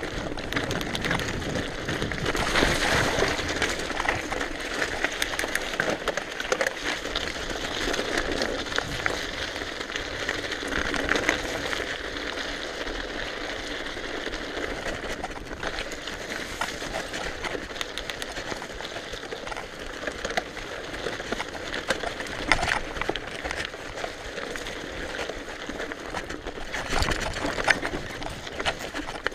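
Mountain bike rolling fast down a rocky, gravelly trail: a continuous rush of tyre noise over loose stones with constant rattling and knocking from the bike, and a few harder knocks over bigger rocks.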